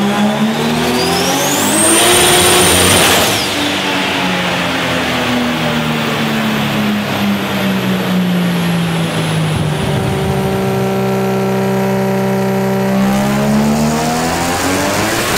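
Nissan Skyline R33 GT-R's RB26 straight-six running on a chassis dyno. The revs climb for about three seconds with a high whine rising with them, then the throttle closes and the revs fall slowly as the rollers wind down. The revs hold, then climb again about two-thirds of the way through.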